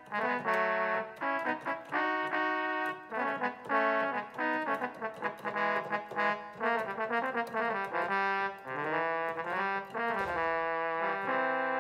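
Roland XP-10 synthesizer playing a brass-section patch: a run of short chords and notes, with the pitch bending around nine to ten seconds in.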